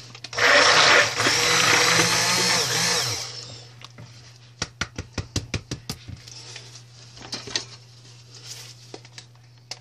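Immersion (stick) blender running in a bowl of cold-process soap batter for about three seconds, then switched off. A quick run of about ten sharp taps follows.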